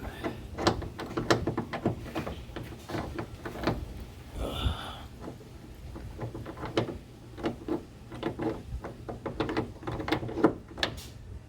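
Small metal mounting hardware (T-nut, bolt, washer and nut) handled and fitted together by hand: a run of irregular light clicks and knocks as the pieces are put together before being tightened.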